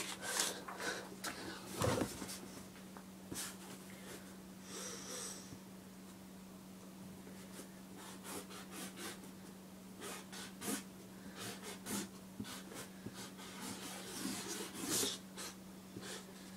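Faint scratchy strokes of a 5 mm Soul tip nib on an On The Run 005 squeeze marker being dragged across plain paper in short, irregular strokes, over a steady low hum.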